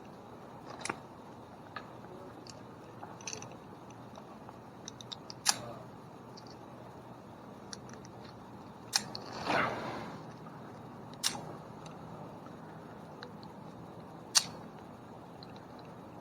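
Sharp, separate clicks and clinks of climbing hardware being handled: carabiners and rope set up as friction points for lowering limbs. A brief rustle, a little over halfway through.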